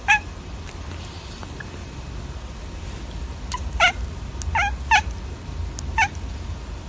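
Short, high-pitched animal calls: about six brief yelps or meows, one at the start and a run of five between three and a half and six seconds in, over a steady low hum.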